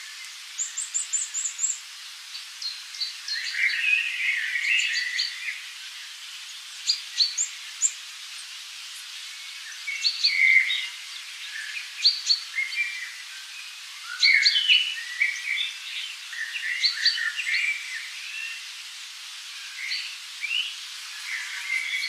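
Several small birds chirping and calling in short, quick phrases, with a faint steady hiss underneath.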